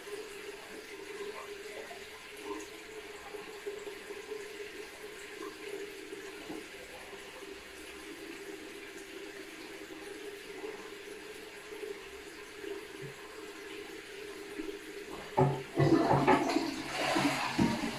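Steady running water in a small bathroom over a low hum, with a much louder rush of noise starting about two and a half seconds before the end.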